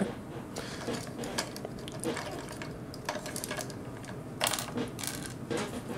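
Small clicks and handling noise of an action figure's armor pieces being worked loose and popped off, with a few scattered sharp clicks, the clearest about four and a half seconds in.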